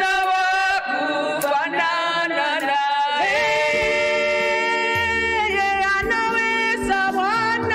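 A woman singing a worship song, holding long notes that slide from pitch to pitch. A low sustained accompaniment note comes in about five seconds in.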